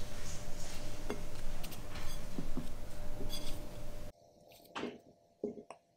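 Pancakes being set onto a ceramic plate: a few light clinks of a utensil against the plate over steady background noise. The background cuts off abruptly about four seconds in, leaving a few soft thuds.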